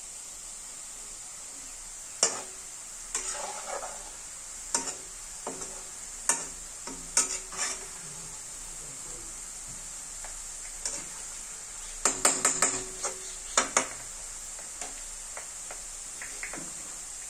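Grated potato deep-frying in hot oil in a wok, a steady sizzle. A metal ladle scrapes and clinks against the wok every second or so as it stirs and lifts the potato, busiest about twelve to fourteen seconds in.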